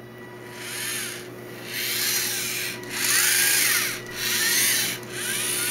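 LEGO NXT geared motors whirring in about five short bursts as the robot drives and turns under joystick control, each burst's whine rising then falling in pitch as the motors speed up and slow down.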